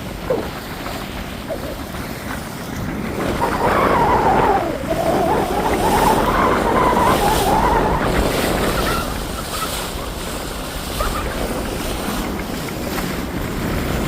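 Wind and rushing water as a Kufner 54 sailing yacht sails close-hauled with its engines off, with wind buffeting the microphone. The rush swells louder for several seconds in the middle, then eases.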